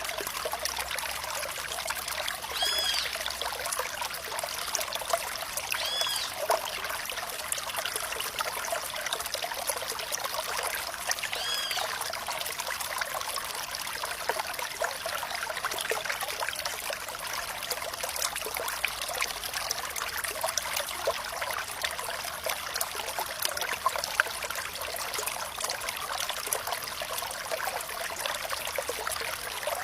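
Stream water trickling and bubbling steadily, a dense splashing babble. Three short high chirps sound over it about 3, 6 and 12 seconds in.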